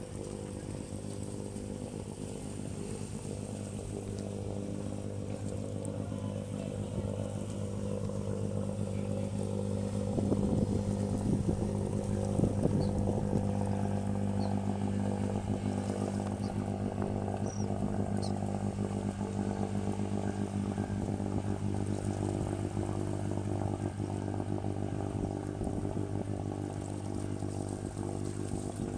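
Boat engine running at a steady speed, a constant low drone that gets a little louder about ten seconds in.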